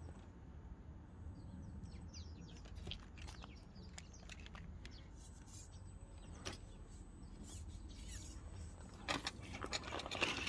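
Radio-controlled scale crawler truck crawling slowly up a kerb onto grass: a faint low electric motor and drivetrain hum with scattered light clicks from tyres on grit, more frequent near the end.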